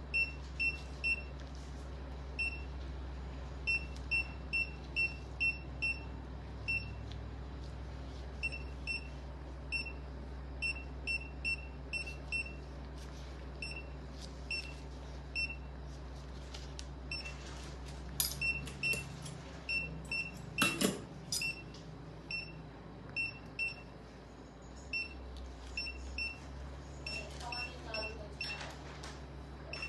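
Patient monitor beeping: short high beeps of one steady pitch, a few a second with irregular pauses, over a steady low hum of equipment. A few brief clatters come about two-thirds of the way through.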